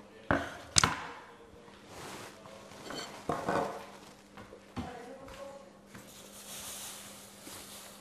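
Kitchen clatter of pots, dishes and utensils being handled at a counter and sink: two sharp knocks about half a second apart near the start, a burst of clattering a few seconds in, another knock, and a soft hiss in the second half.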